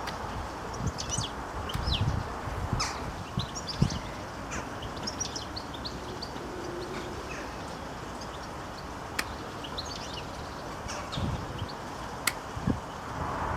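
Small birds chirping in short, high, scattered chirps over a steady low background noise, with a couple of sharp clicks in the second half.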